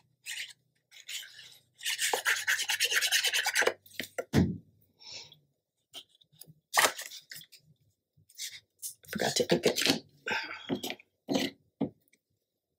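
Paper and cardstock being handled and rubbed by hand during gluing: scattered rustles, taps and clicks, with a run of quick rasping rubbing strokes about two seconds in and another cluster of scratchy handling noise a little past the middle.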